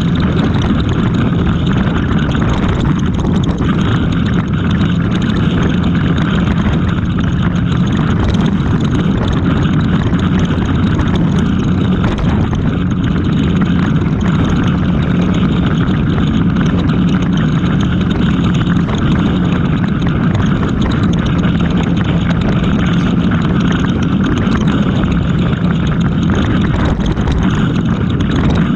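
Steady driving noise of a vehicle at highway speed: a low, unbroken engine drone with road and wind rush over it.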